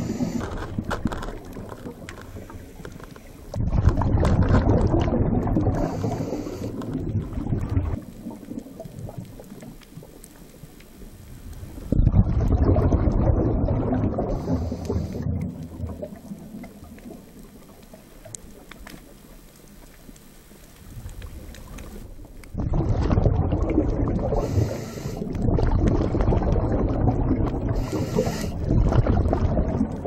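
A scuba diver's exhaled bubbles rumbling and bubbling through the water in bursts a few seconds long, with quieter gaps of several seconds between breaths and a brief hiss now and then.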